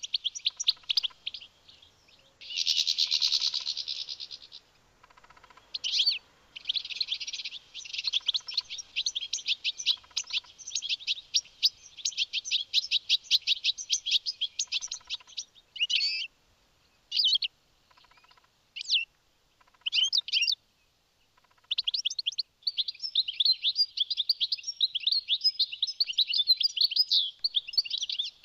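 European goldfinch singing: rapid, high twittering phrases of varying length broken by short pauses, with a long unbroken run near the end.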